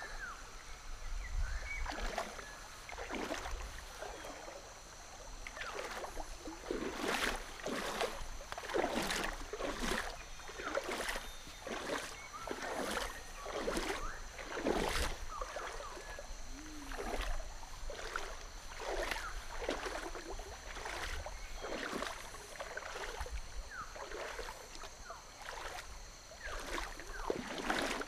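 Bare feet wading through a shallow, pebbly river, each step splashing and sloshing the water, roughly one step a second from a few seconds in.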